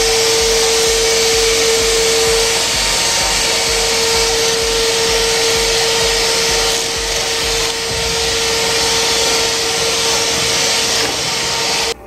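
Samsung SC4140 bagged canister vacuum cleaner running at full power, its dust bag freshly cleaned: a steady high whine over loud rushing air.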